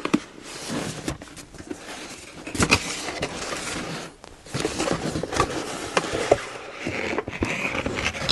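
Cardboard packaging being opened and handled: box flaps and an inner box scraping and rustling, with a few sharp taps, the loudest about two and a half seconds in.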